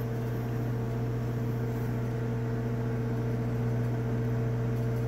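Microwave oven running: a steady hum with an even hiss.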